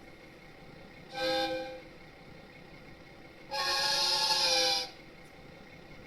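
Recorded horn of a Chizu Express HOT7000 series diesel railcar played through a KATO Sound Box speaker: a short blast about a second in, then a longer blast about two seconds later.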